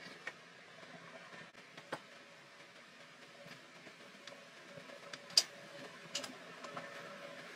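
Cookware clicks and knocks: a glass pan lid and a wooden spatula against a black skillet of simmering broth, a few sharp ticks with the loudest knock about five and a half seconds in, over a faint steady background hiss.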